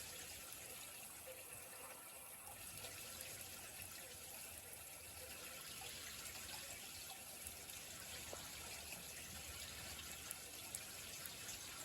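Faint, steady sound of rain falling, with a trickle of running water.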